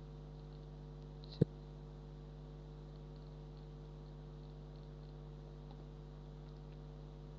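Steady low electrical mains hum on the recording, with one sharp click about a second and a half in.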